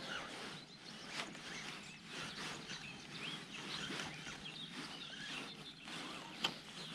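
Faint outdoor ambience with scattered small bird calls over a soft, even background hiss.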